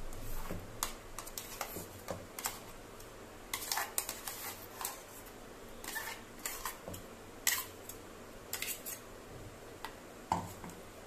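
A metal spoon scraping thick ground chutney out of a stainless-steel mixer jar, with irregular short scrapes and light clinks of spoon against steel.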